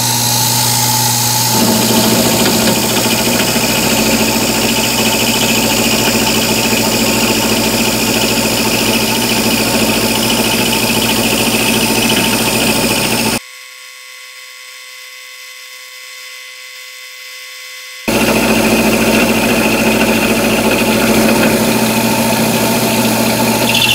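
Milling machine running with an end mill taking a side cut along a T-slot shoulder in a metal plate: a steady machine hum with cutting noise. Past the middle it drops to a faint thin hum for about five seconds, then the cutting sound comes back.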